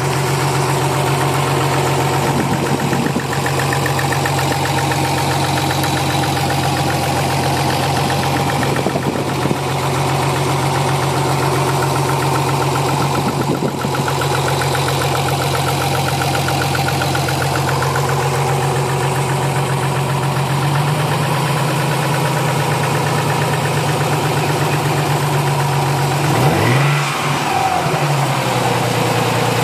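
Nissan 300ZX's 3.0 V6 idling warm, with a steady rhythmic knock over the usual lifter tick. The owner suspects rod knock from cylinder #4 or #6. The engine note briefly rises and falls in pitch near the end.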